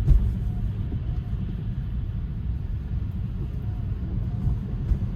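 Steady low rumble of tyres on a wet road and wind, heard inside a Tesla's cabin as it drives through a rainstorm.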